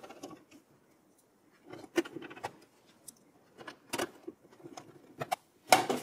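Handling sounds of hands working inside a steel PC tower case while fitting a motherboard: scattered clicks and light metallic taps with soft rustling between them. The sharpest clicks come about two seconds in, at four seconds, and near the end.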